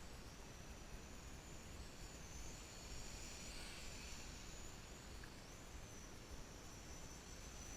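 Faint high-pitched whine of a VISUO XS809HW quadcopter's motors and propellers in flight, its pitch wavering up and down as the throttle changes, over a steady hiss.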